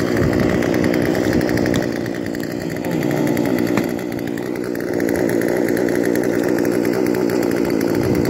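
Gas chainsaw engine running steadily, with a fast even pulsing. A couple of faint knocks from an ice chisel chipping at the ice come through over it.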